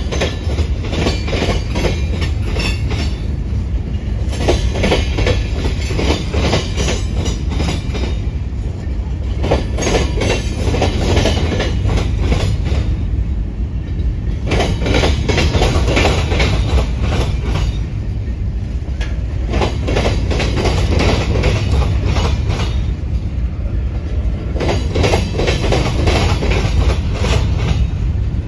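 Freight train cars (boxcars and covered hoppers) rolling slowly past, a steady low rumble of wheels on rail. Clusters of clattering wheel clicks come round about every five seconds as each car's wheelsets pass.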